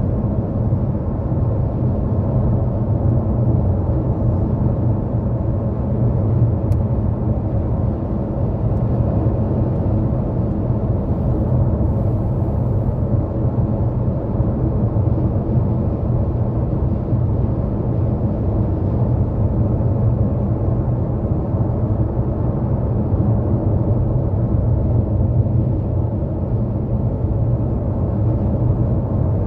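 A car driving at highway speed on an interstate: steady, low tyre rumble and road noise with an engine drone, unbroken throughout.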